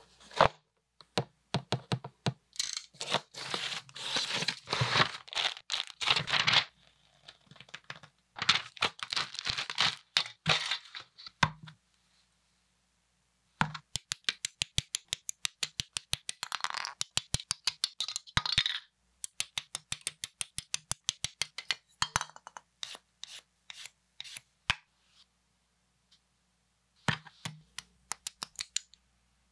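Plastic model-kit build sounds. For the first part there are crackly rustling and tearing sounds. From about halfway there are fast runs of sharp clicks as sprue nippers cut Bandai Entry Grade Kirby parts from the plastic runner. Near the end there are a few clicks as the snap-fit parts are pressed together.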